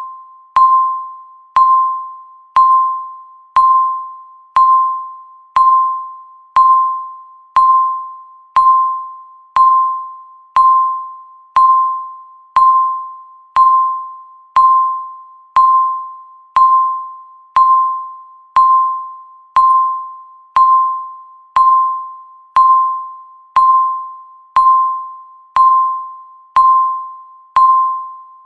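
Countdown timer beeping once a second: a single mid-pitched electronic tone, sharp at the start and fading away before the next beep.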